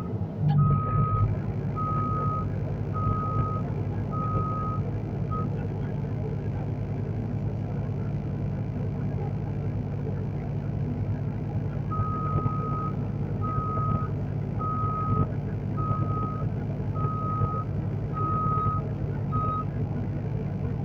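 Heavy machine's travel/reversing alarm beeping at one steady pitch about once a second, over a steady diesel engine running. The beeping stops about five seconds in and starts again around twelve seconds in for several more seconds.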